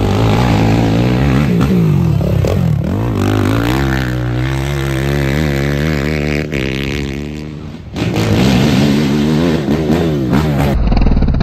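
Racing ATV engines revving hard as quads pass on a dirt track, pitch rising and falling with the throttle. The sound changes abruptly about eight seconds in and again near the end as one pass cuts to the next.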